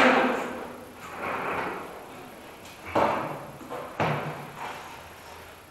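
Plastic clacks and clunks of a Black & Decker wet/dry shop vacuum's head being unlatched and lifted off its steel tank, with two sharp knocks about a second apart near the middle, each fading quickly, amid lighter handling noise.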